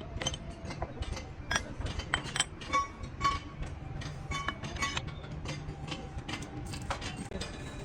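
Metal tools and engine parts clinking and tapping, irregular sharp clinks, some ringing briefly, over a low workshop rumble.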